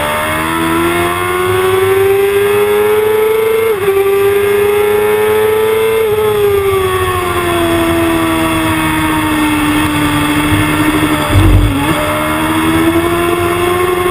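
Sport motorcycle engine at hard throttle, heard from an onboard camera. Its note climbs as the bike accelerates, dips briefly about four seconds in, then sinks slowly and climbs again toward the end. A short low thump comes about twelve seconds in.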